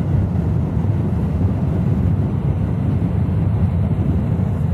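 Steady low rumble of road and wind noise inside a car's cabin while it travels at highway speed.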